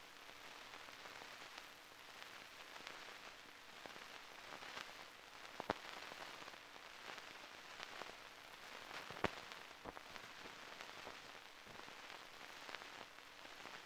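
Surface noise from an old film's soundtrack with no program sound on it: an even, faint hiss with fine crackle and a few sharp pops, the loudest about six and nine seconds in.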